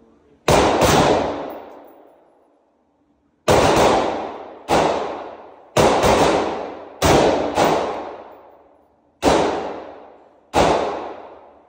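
About nine single shots from an S&W M&P15 AR-platform rifle, fired at uneven gaps of roughly one to two seconds, with two pairs coming close together. Each shot rings out in a long echo off the walls of an indoor range. These are slow, aimed shots fired while zeroing a newly mounted EOTech holographic sight.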